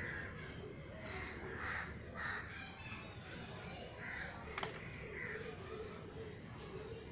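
Crows cawing, several short harsh calls in a loose series, with a single sharp click about two-thirds of the way through.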